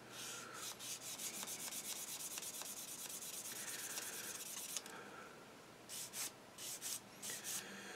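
Sanding sponge rubbed back and forth along a styrene plastic model gun barrel, taking off the mould seam line: quick, even strokes, several a second, for about five seconds, then a short pause and a few separate strokes near the end.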